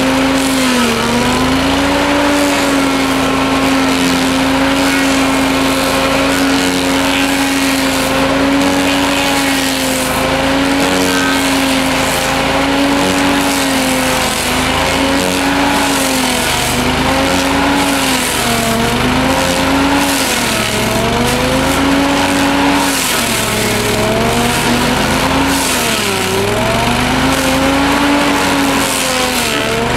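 Petrol stump grinder with a 25 hp Kohler engine running at full throttle as its 12-tooth cutting disc grinds a tree stump. The engine note holds steady at first. From about halfway it sags and recovers every two to three seconds as the disc is swept through the wood under load.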